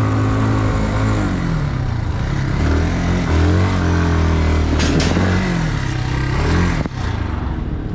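Motorcycle engine running and being revved, its pitch rising and falling several times, dropping abruptly about seven seconds in.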